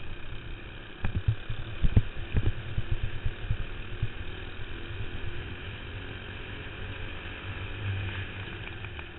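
Racing kart's four-stroke clone engine running steadily, heard from a camera mounted on the kart, with wind and chassis rumble on the microphone. A burst of sharp low thumps about one to three seconds in is the loudest part.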